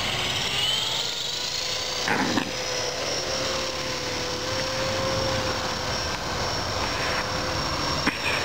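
Electric RC helicopter (E-sky CP3 with a high-speed brushless main motor) spooling up: the high-pitched motor and rotor whine rises over the first second, then holds steady. Two short knocks come through, one about two seconds in and one near the end.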